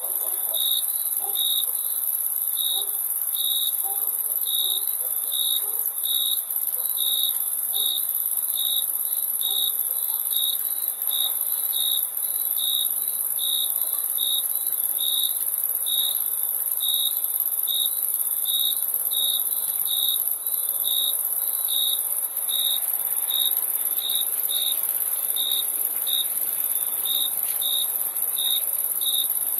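Crickets chirping at night: a continuous high trill with one cricket's loud, regular chirps repeating about one and a half times a second.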